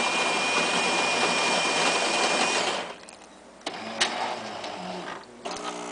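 An automatic coffee machine running with loud noise and a steady high whine, which cuts off suddenly about three seconds in. After that come a few light clicks and a low steady hum.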